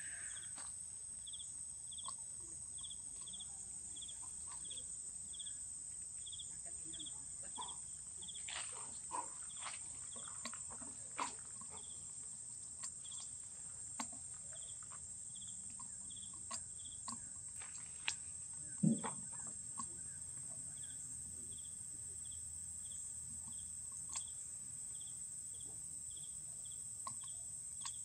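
Insects: a steady high-pitched drone with a short repeated chirp about one and a half times a second. Soft clicks and rustles in leafy undergrowth come and go, with one sharper knock about two-thirds of the way through.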